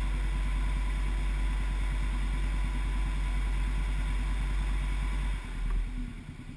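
A vehicle engine running steadily with a dense pulsing rumble, dropping away sharply about five and a half seconds in.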